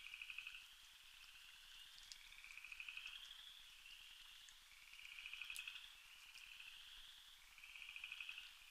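Faint night chorus of trilling calls: two callers answer each other at slightly different pitches, each short trill following the last about once a second. A few faint clicks sound over it.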